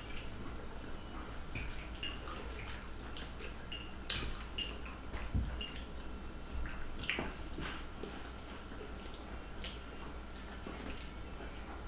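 Scattered small clicks and wet smacking sounds of people eating spaghetti noodles fast, over a faint steady hum.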